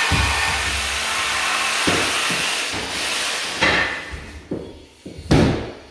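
A loud, steady hiss that fades out about four seconds in, with a few short knocks, the last and loudest near the end.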